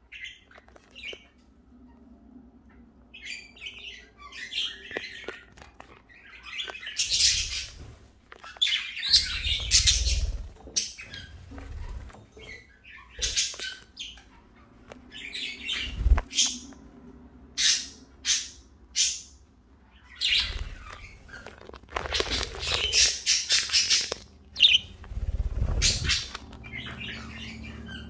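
Pet budgerigars chirping and chattering in quick, irregular bursts of short high calls, some loud and close, with a few low thumps in between.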